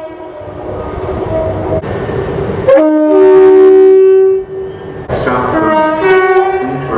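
Train horns sounding over the noise of a passing train: a loud blast of two notes together about three seconds in, lasting about a second and a half, then another horn blast about five seconds in whose notes shift and slide.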